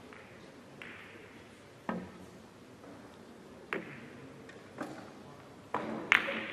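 A cue tip strikes the cue ball on a carom billiards table about two seconds in. About four more sharp clicks and knocks follow as the balls hit each other and the cushions, the loudest near the end.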